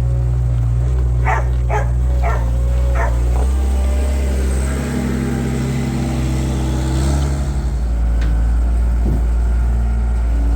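A tractor engine running steadily, its note changing about a third of the way in and again later. A dog barks four times in quick succession in the first few seconds.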